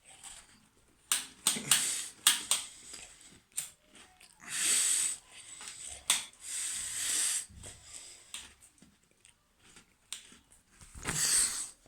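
A few sharp clicks and taps of hands working a throttle cable onto the throttle body pulley, followed by three heavy breaths close to the microphone.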